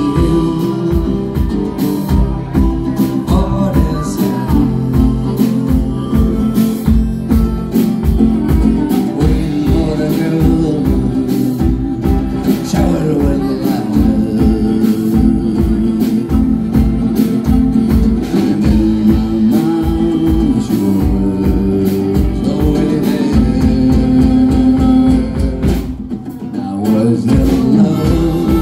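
Live band playing an instrumental blues-rock passage: harmonica wailing over strummed acoustic guitar and a drum kit keeping a steady beat. The drums drop out briefly near the end.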